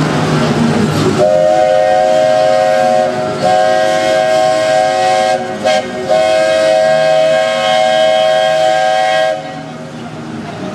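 Steam train's chime whistle blowing one long, loud blast of several close notes sounding together. It starts about a second in, falters twice briefly, and cuts off about a second before the end.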